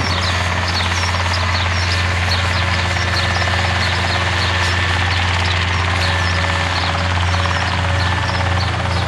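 Minitrike (motorized hang-glider trike) flying overhead, its engine and propeller giving a steady low drone that holds an even pitch. Repeated short high chirps sound above it.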